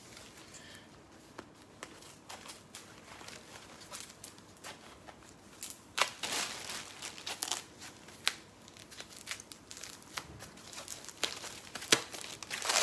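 White packing wrap crinkling and rustling as it is handled and pulled off a new bag, in irregular spurts with a few sharper crackles.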